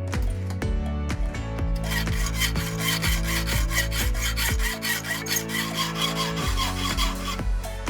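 Quick rasping strokes of a hand saw's teeth, starting about two seconds in and stopping near the end, over background music.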